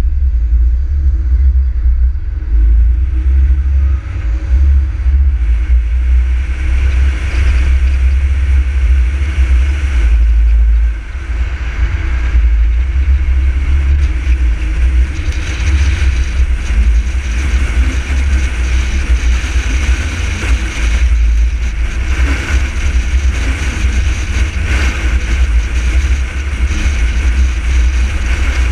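A car driving, with a heavy, steady low rumble and road noise. The noise grows fuller a few seconds in as the car picks up speed.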